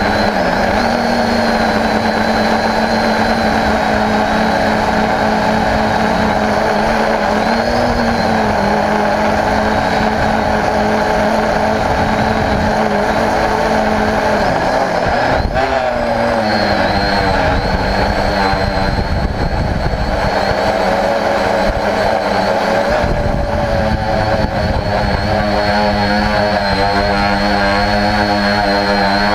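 Homemade quadcopter's electric motors and propellers whining steadily, heard from on board the craft, with the pitch dipping and wavering about halfway through and shifting again near the end.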